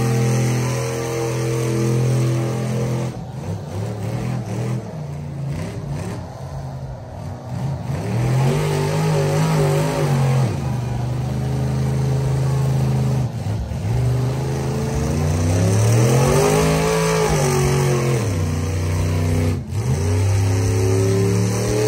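Truck engine running hard, held steady at first, then its revs rising and falling several times.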